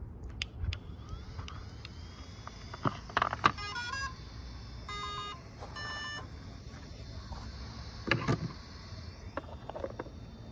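XT60 battery connector snapping together about three seconds in, followed by a brushless motor ESC's power-up tones: a quick run of stepped beeps, then two more short beep sequences as the controller arms. A louder knock a little after eight seconds.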